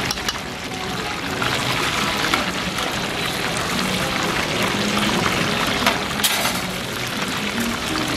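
Oil bubbling and sizzling around battered chicken ribs deep-frying in a large wok: a steady, dense crackling hiss with a few sharp clicks.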